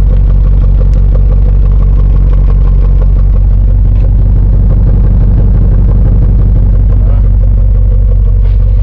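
1998 Jeep Grand Cherokee's 5.9-litre (360 cubic inch) V8 idling steadily through a custom-sized exhaust: a loud, even, low rumble.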